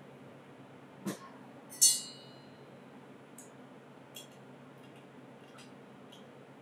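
Bar tools handled at a cocktail glass: a dull knock about a second in, then a sharp, ringing clink, the loudest sound, followed by several faint light clinks of a metal bar spoon against a glass tumbler.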